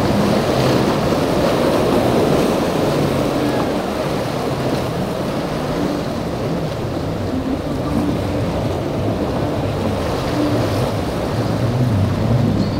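A boat's outboard engine running, its pitch wavering up and down, under a steady wash of breaking waves and wind buffeting the microphone.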